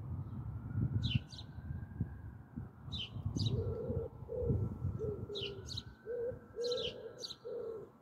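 Pigeons cooing, a low coo repeated over and over from a few seconds in, with small birds chirping in pairs of short, sharp notes every second or two. A low rumble underneath fades out about six seconds in.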